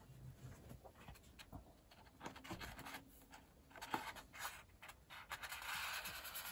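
Faint rustling and light clicks of a large sheet of Hosho printmaking paper being handled and lowered onto an inked lino block. The rustle grows a little steadier and louder near the end.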